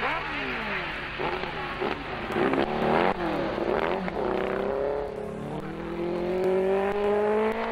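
Racing sidecar motorcycle engine passing close by, its pitch dropping as it goes past, then an engine note climbing steadily in pitch as the machine accelerates out of the corner.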